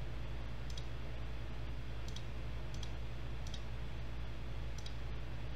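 Computer mouse clicking, about five faint, separate clicks a second or so apart, over a steady low hum.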